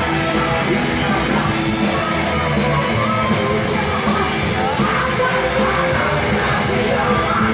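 Loud heavy rock music with a steady cymbal beat about three times a second and a singing voice over the band.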